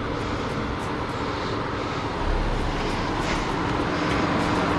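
Off-road vehicle's engine running steadily as it drives along a rutted dirt track, slowly getting louder.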